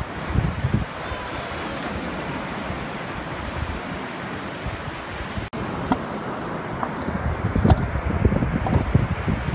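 Ocean surf washing onto a sandy beach, with wind buffeting the microphone in low gusts. The sound breaks off suddenly for an instant about halfway through, and the wind gusts are heavier after that.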